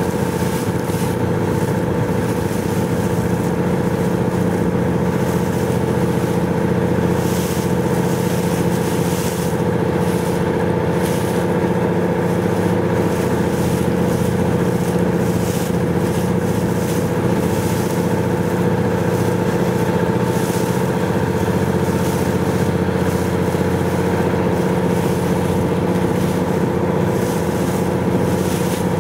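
Motorboat engine running at a steady speed, a constant hum with no change in pitch.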